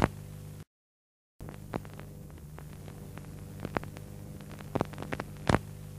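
Faint steady low hum with scattered clicks and pops, broken by a brief gap of dead silence about half a second in; a few louder clicks come near the end.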